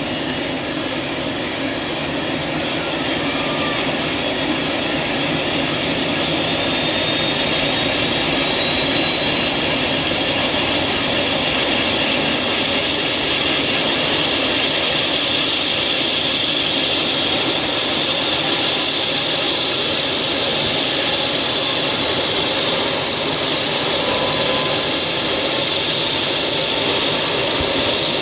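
Airbus H145 air ambulance helicopter's turbine engines running on the ground, a high whine climbing slowly and steadily in pitch as the engines and rotor wind up before take-off.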